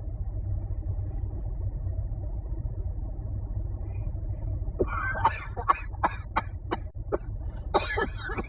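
A man coughing hard and repeatedly after drawing on a vape pen, the fits starting about five seconds in and growing harsher near the end. A steady low rumble runs underneath.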